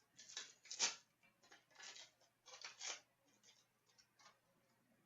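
Trading cards being handled, slid and flipped against one another: a run of short, faint swishes and flicks, thinning out to a few light ticks after about three seconds.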